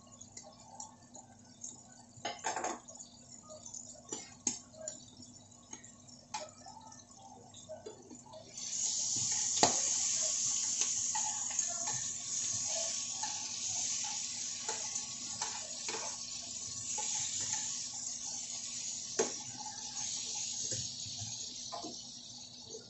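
Pork pieces frying in hot oil in a nonstick frying pan: a loud sizzle starts suddenly about eight seconds in and carries on, slowly fading. Before it, light clicks and knocks of metal tongs against the pan, plate and cutting board.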